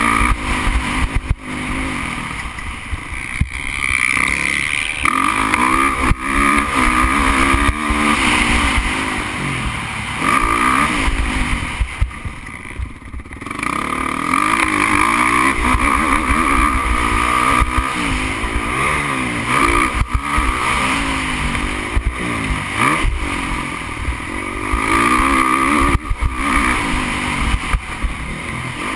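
Motocross motorcycle engine heard from on the bike, revving up and falling back again and again through the gears at racing speed, with knocks and rattles from the bumpy dirt track. The throttle closes briefly about twelve seconds in before the engine pulls hard again.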